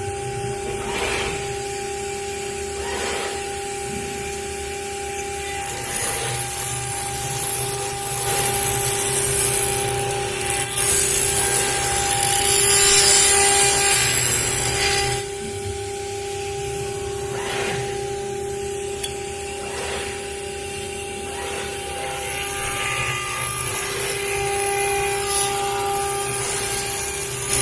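CNC router spindle running with a steady whine while its bit cuts acrylic sheet. The hiss of the cut grows louder for several seconds in the middle and again near the end.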